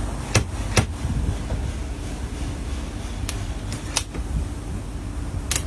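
Steady low wind rumble on the microphone, broken by several sharp clicks, two of them close together in the first second.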